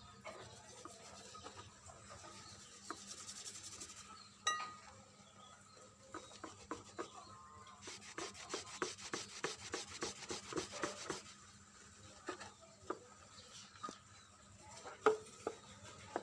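Hand rubbing with an abrasive tool in quick, evenly spaced back-and-forth strokes, as in sanding or filing, with a steady run of strokes for about three seconds near the middle. Scattered light knocks and clicks come between the strokes.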